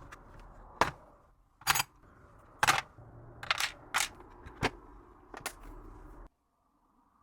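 Sharp clicks and clacks of small pistol parts being handled as the slide of a VFC Glock 45 airsoft pistol is taken apart, about seven in all, spaced irregularly. A low steady background hum runs under them and stops abruptly about six seconds in.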